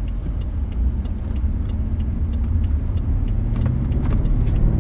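The 2011 BMW B7 Alpina's twin-turbo V8, heard from inside the cabin over steady road rumble. Its note rises and grows louder in the last second or two as the car accelerates in sport mode.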